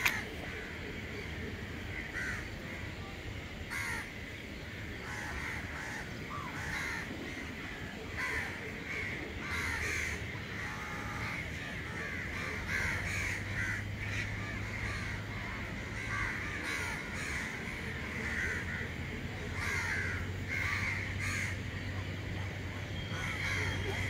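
Crows cawing over and over, several calls overlapping at a time, with a steady low hum underneath.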